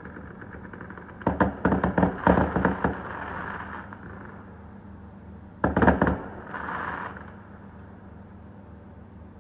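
New Year fireworks going off: a rapid run of bangs and crackles starting about a second in and lasting about two seconds, then a second short cluster of bangs around six seconds, followed by a brief hiss.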